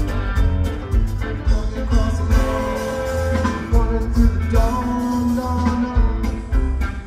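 Rock band music with singing over a steady, pulsing bass and drum beat.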